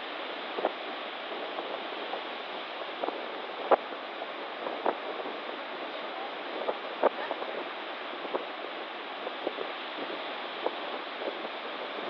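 Stormy sea surf and wind making a steady, even rush, with scattered short clicks and knocks through it.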